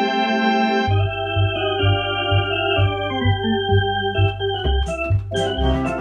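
Electronic organ playing held chords over a bass line that comes in about a second in and pulses about twice a second; the playing grows busier and brighter near the end.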